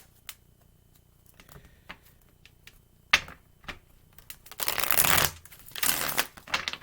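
Tarot cards being handled and shuffled: scattered light taps and clicks, a sharp snap about three seconds in, then two short bursts of shuffling rustle near the end.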